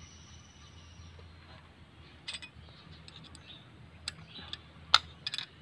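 A few light metallic clicks and taps of hand tools working on an Isuzu 4BE1 engine during valve clearance adjustment, the sharpest about five seconds in, over a faint low hum.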